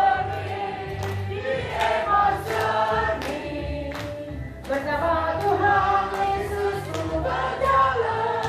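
A group of people singing a worship song together over accompanying music, with scattered hand clapping.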